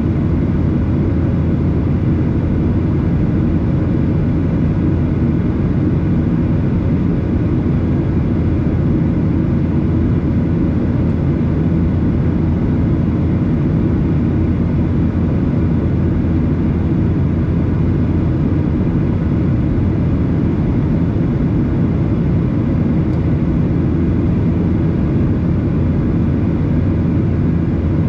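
Steady in-flight cabin drone of a Boeing 737-800, heard from a seat over the wing: a low rumble from its CFM56-7B turbofans and the rush of air past the fuselage, with a few faint steady tones above it.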